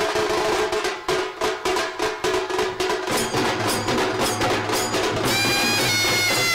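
A folk orchestra playing live. A held tone drops away and a fast run of drum strokes, roughly four or five a second, takes over; about five seconds in, a high wind instrument comes in with a melody over a low drone.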